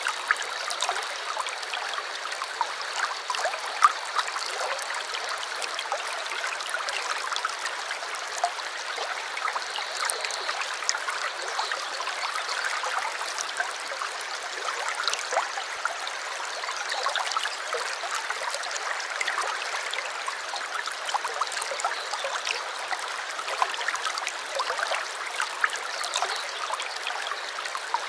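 A small stream running steadily over stones, trickling and gurgling with many small splashes.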